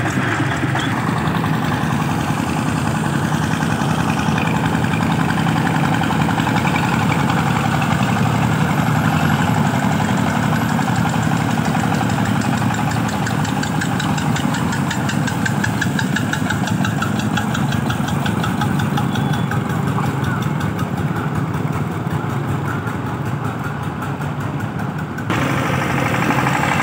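Diesel engines of small farm tractors, including a two-wheel walking tractor pulling a flatbed trailer, running with a fast, even chugging as they drive along the road. The sound changes abruptly near the end.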